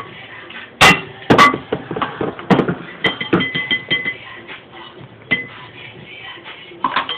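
Dishes and utensils clinking and knocking on a kitchen counter, a few sharp clinks with the loudest about a second in, over background music.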